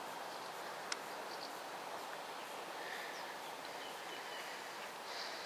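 Steady outdoor background hiss with no train yet passing, a single sharp click about a second in, and a few faint, short high bird chirps three to four seconds in.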